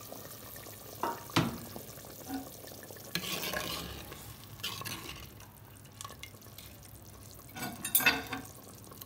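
Steel ladle stirring hot mutton stew in a clay pot, with liquid sloshing and the ladle scraping and knocking against the pot's sides. There are a couple of sharp knocks a little over a second in and a cluster of clinks near the end.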